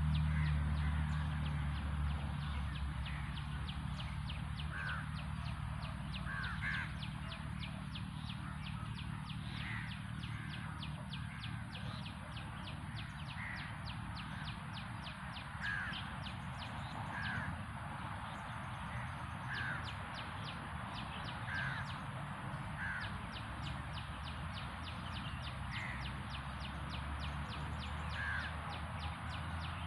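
A bird calling over and over, short calls every second or two, over a fast, steady ticking.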